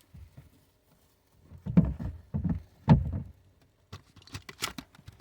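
Handling noises as a taillight wiring harness is fed through a hole in the car body: a few dull knocks and bumps of the plastic taillight housing against the car about two to three seconds in, then lighter clicks and rustling.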